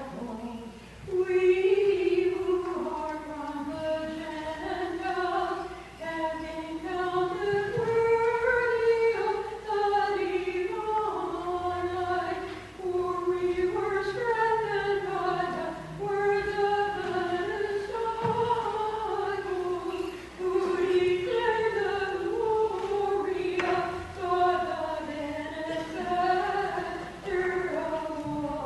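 Church choir singing a slow hymn as one continuous melody of held, gliding notes.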